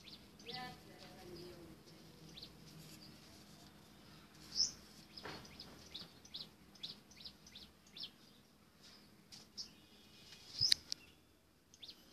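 Small birds chirping: many short, high chirps at irregular intervals, with one sharp knock near the end.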